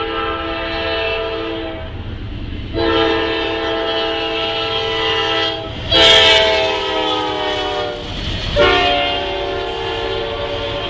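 Norfolk Southern freight locomotive's multi-chime air horn sounding four long blasts at a road crossing as the train passes. The horn is loudest and drops in pitch as the locomotives go by about six seconds in, over the steady rumble and clatter of the train's wheels on the rails.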